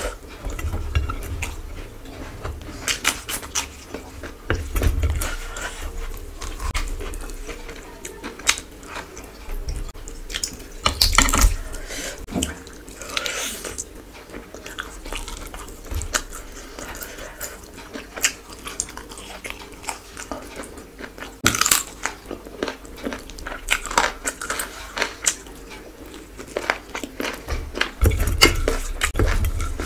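Close-miked chewing and biting of a person eating rice, curry and chicken by hand, with many scattered wet clicks and a few dull thumps.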